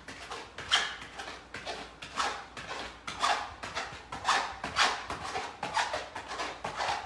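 A man breathing hard in quick rhythmic puffs, about two a second, while doing mountain climbers on an exercise mat.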